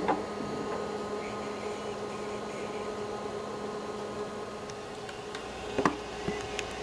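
Steady whir and hum of an IBM PS/2 Model 25 running, its cooling fan and hard drive spinning, with a couple of short clicks about six seconds in.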